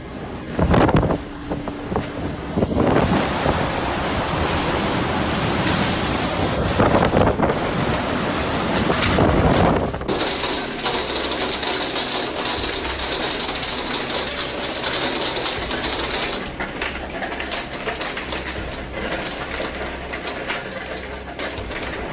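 Strong storm wind buffeting the microphone in gusts. About ten seconds in it gives way to a hailstorm: hailstones pelting a glass door and a wooden deck in a dense, rapid clatter.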